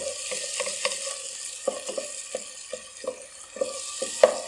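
Onion, ginger and spice masala sizzling in oil in a pot while a spoon stirs it, with irregular knocks and scrapes of the spoon against the pan about twice a second. The sizzle is damped by a splash of chickpea cooking water and fades over the few seconds.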